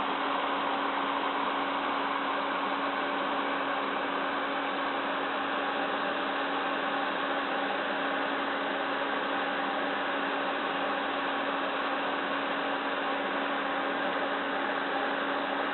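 PC case fan running steadily: an even rush of air with a steady hum underneath.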